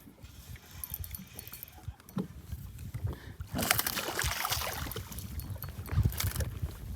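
Boat on the water: faint knocks and low rumble, then from about halfway an even rushing hiss of wind and water.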